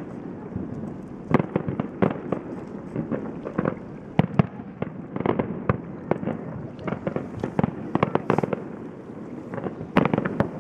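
A fireworks display going off: many shell bursts and crackles in quick, irregular succession, with a cluster of louder bangs near the end.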